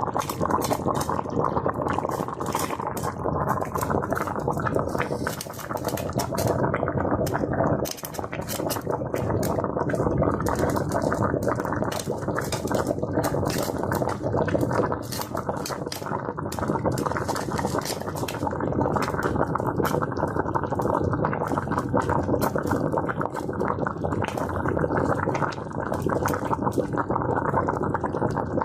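Water at a rolling boil, bubbling and gurgling steadily with many small irregular pops.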